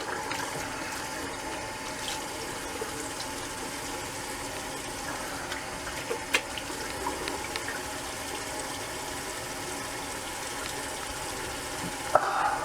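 Cold tap water running steadily into a sink as the face is rinsed after a shave, with a few small clicks and knocks, one sharper about halfway through.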